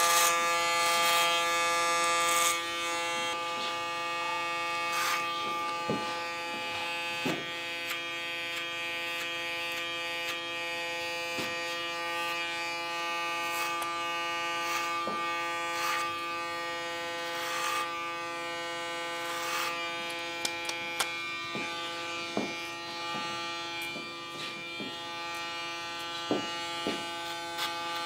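Electric hair clippers buzzing steadily as they shear short hair at the nape, with occasional light clicks. The buzz shifts in tone twice.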